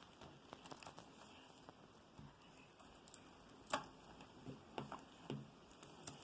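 Faint, scattered small clicks and taps of hands handling a laptop LCD panel and its 40-pin video cable connector during alignment, with one sharper click a little under four seconds in and a few lighter clicks after it.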